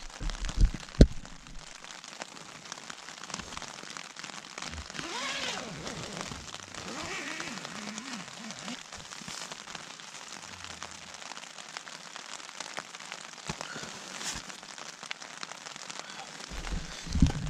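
Rain falling on the fabric of a tent, heard from inside it: a steady haze of fine drop ticks. A few sharp knocks sound in the first second, and low thumps come just before the end.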